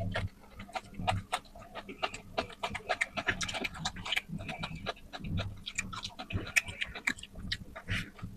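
Close-up eating sounds: a person chewing and smacking their lips, with many irregular wet clicks and small bursts of breathing through the nose.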